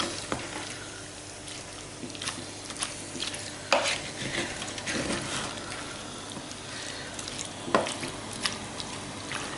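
Wooden spoon stirring a thick chunky chilli of chopped tomatoes, peppers, onion and Quorn in an electric pressure cooker's inner pot: continuous wet scraping with irregular sharper knocks of the spoon against the pot, two of them louder, a little over a third of the way in and about three-quarters through.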